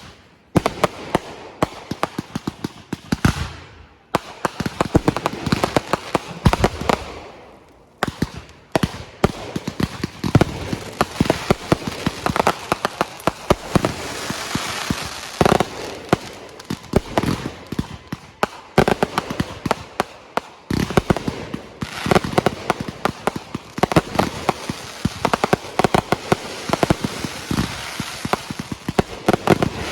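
Fireworks going off in a dense, near-constant run of crackling pops and sharp bangs, with brief lulls twice in the first eight seconds before the bursts come thick again.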